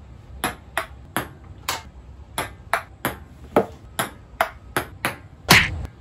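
Table tennis rally: a plastic ball clicking sharply off paddles and the table, about two clicks a second. A louder, heavier knock comes near the end.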